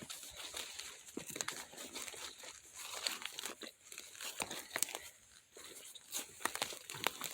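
Footsteps crunching and rustling through dry fallen leaves, in irregular crackles.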